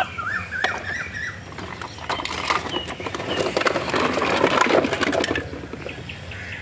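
Hard plastic toy vehicles clattering and knocking against one another and against a plastic basket as they are lifted out and set down, a run of irregular clicks and knocks that is busiest a little past the middle.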